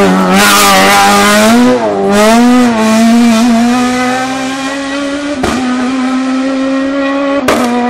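Suzuki Swift rally car's engine revving hard as it passes close by and accelerates away up the road, its pitch swinging up and down with throttle and gear changes at first, then holding steady and fading as it goes away. Two sharp cracks come later, about two seconds apart.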